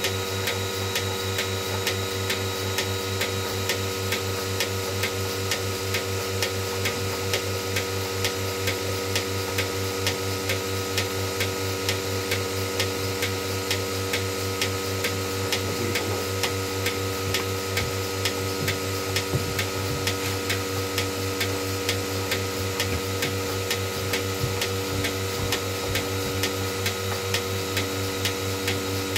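Portable bucket milking machine running on a cow: the vacuum pump motor hums steadily while the pulsator ticks in a fast, even rhythm, drawing milk into the can.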